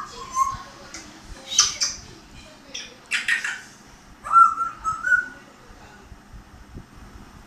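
African grey parrot vocalising: a short whistle, two short harsh squawks, then a longer whistle that rises in steps, about four to five seconds in.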